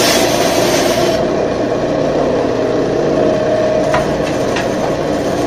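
Band saw cutting through a hardwood block. The cut finishes about a second in, and the saw then runs on free with a steady hum, with two light ticks near the end.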